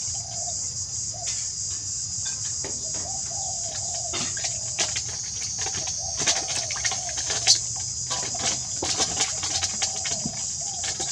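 Faint wavering animal calls, bird-like clucks or squeaks, over a steady high hiss, with scattered light clicks and knocks.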